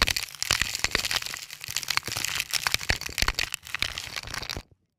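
Dense crackling and crinkling right against the camera's microphone, many sharp clicks packed together, as something is dumped over the upward-facing camera. It cuts off abruptly near the end.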